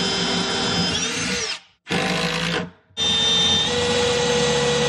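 A cordless drill-driver works through a face-frame clamp's guide into cabinet face frames, running in three bursts: a long one, a short one, then a long one. Its motor whine steps up in speed partway through the last burst and slides down in pitch as each burst stops.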